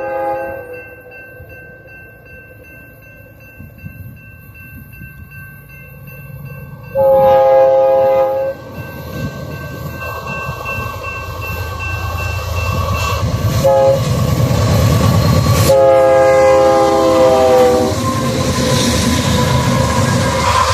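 Locomotive air horn sounding a chord: the end of one blast, then a long blast, a short toot and another long blast, the long-long-short-long pattern of a grade-crossing warning. Under it the rumble of the approaching freight train grows steadily louder.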